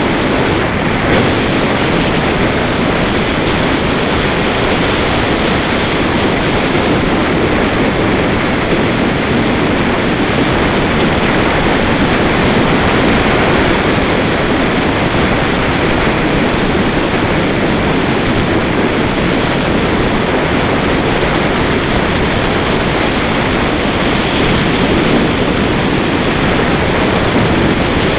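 Loud, steady wind rush over the microphone of a handlebar-mounted camera on a road bike moving at speed, mixed with road noise from the tyres on asphalt.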